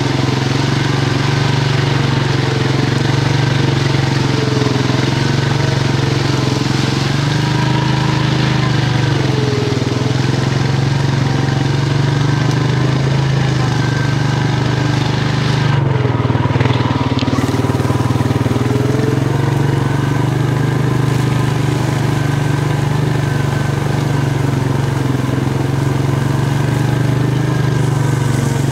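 Quad (ATV) engine running steadily as it rides along a dirt trail, its pitch holding nearly constant with only small wavers and no hard revving.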